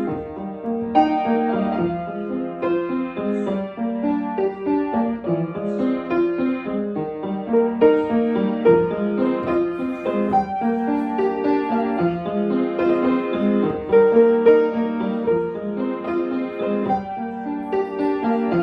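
Background piano music, a steady run of notes in the middle register.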